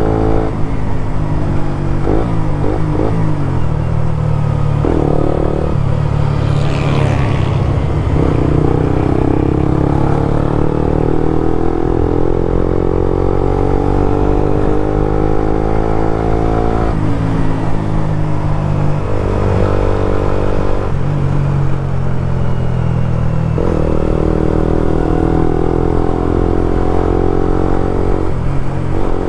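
Suzuki GSX-R150's single-cylinder engine running through a Prospeed Black CNC full-system aftermarket exhaust while riding. The engine note climbs and drops several times as the revs change.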